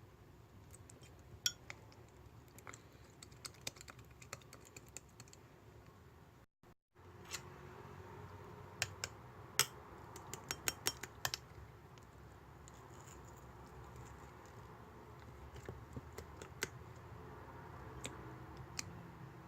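Slime being squeezed and played with by hand, making scattered sticky clicks and little pops, with a quick run of clicks around ten seconds in. The sound drops out completely for a moment about six and a half seconds in.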